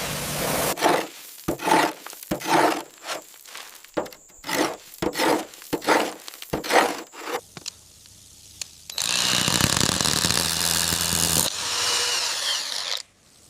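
Repeated scraping or sawing strokes, about two a second, for the first seven seconds. From about nine seconds in, a power tool runs steadily with a low hum, then cuts off near the end.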